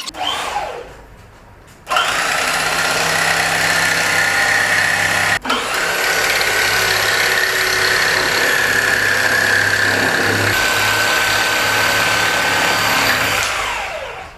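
Electric power tool motor starting up and running at a steady, high speed with a constant whine. It cuts out for an instant about five seconds in, then runs on and winds down with a falling pitch near the end.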